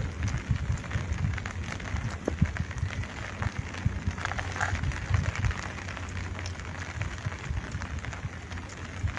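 Light, steady rain falling and pattering, with irregular low rumbling underneath.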